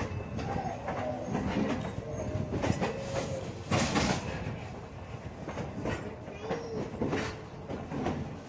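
Passenger railroad car rolling along the track: its wheels clatter in irregular clicks and knocks, with a few short, faint wheel squeals.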